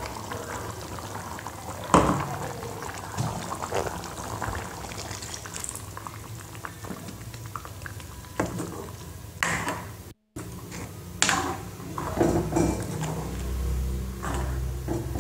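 Egg curry bubbling at a simmer in a black iron kadai as ground coconut paste is stirred in, with a steel ladle knocking and scraping against the pan, sharply about two seconds in and several more times in the second half.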